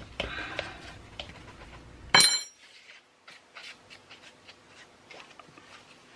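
Bath bomb powder scraped and pressed into a small clear plastic mold by hand, with light scratching, taps and plastic clicks. One louder, sharp clink about two seconds in.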